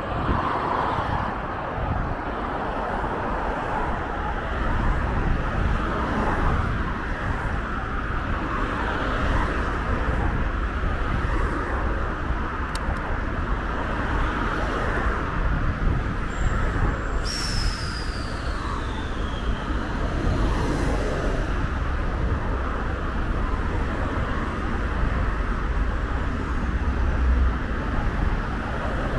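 Steady road-traffic noise with a low rumble underneath. A brief high squeal falls in pitch about two-thirds of the way through.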